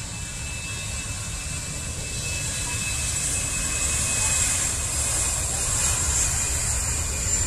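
Jet engines of an Airbus A320 airliner running as it rolls past on the runway: steady high whine over a low rumble, growing steadily louder.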